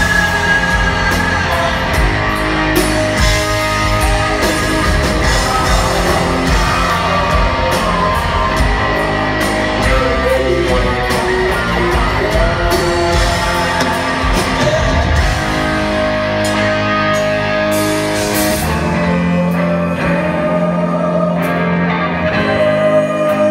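Live rock band playing in a large hall: electric guitars, bass and drums with a sung lead vocal. About 18 seconds in the bass and drum hits fall away, leaving sustained electric guitar.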